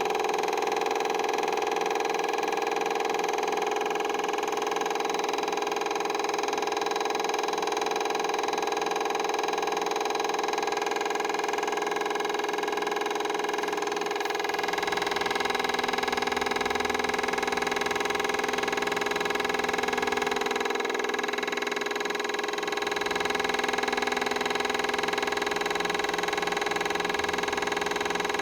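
Refrigerator compressor, reused as a homemade air compressor, running with a steady hum. Its sound changes slightly about halfway through.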